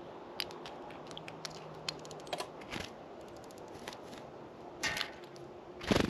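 Small birds at a feeder close to the microphone: scattered sharp taps and clicks of beaks pecking and feet hopping on the feeder, with two louder knocks near the end.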